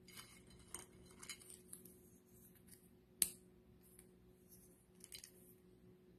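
Dried karot (wild yam) chips rustling and clicking against each other and a ceramic dish as a hand stirs and lifts them: faint scratchy rustles and small clinks, with one sharper click a little past three seconds in.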